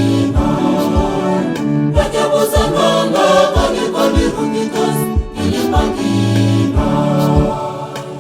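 A church choir singing in harmony over a steady low beat. The voices stop near the end, leaving the instruments.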